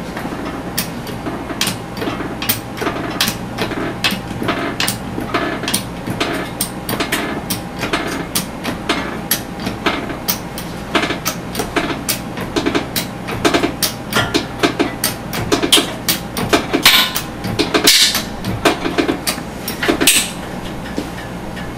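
Pull-test rig loading a carabiner over an edge: a steady run of sharp clicks and knocks, about two or three a second, over a constant mechanical hum. The clicks grow louder as the load builds, with a few sharper cracks near the end.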